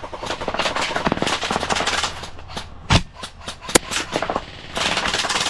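Airsoft guns firing: rapid full-auto bursts of clicks, with two louder single shots about three and nearly four seconds in.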